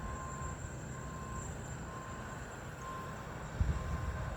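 A vehicle's reversing alarm beeping steadily about once a second, over a low rumble, with a louder low thump near the end.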